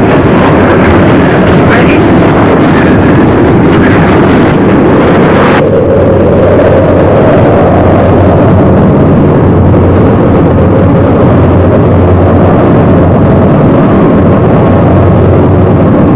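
A lifeboat's engine runs with a loud, steady rumble, mixed with wind and sea noise. About five and a half seconds in, the higher hiss cuts off abruptly and the low drone carries on.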